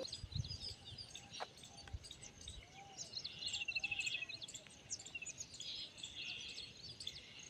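Several wild birds singing and chirping, with many short high calls overlapping and a fast, even trill about three seconds in. A few soft low thumps come near the start.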